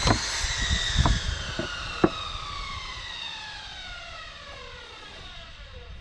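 An electric power saw's motor and blade winding down after the trigger is released, a whine of several pitches sliding slowly lower and fading away. A few sharp knocks of wood or tools come in the first two seconds, the loudest about two seconds in.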